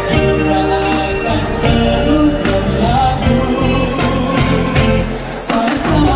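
Live band playing a Malay song, with a man singing the lead vocal into a microphone.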